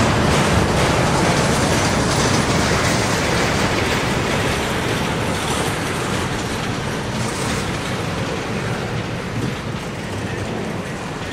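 Double-stack intermodal container well cars rolling past, with a steady noise of steel wheels on rail that slowly gets quieter.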